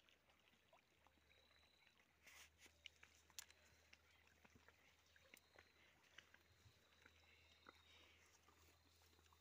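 Near silence: faint outdoor room tone with a low steady hum and a few scattered soft ticks.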